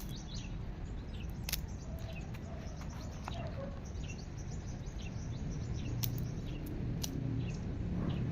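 Outdoor background rumble with faint bird chirps, and a few sharp clicks, about a second and a half in and twice more near the end.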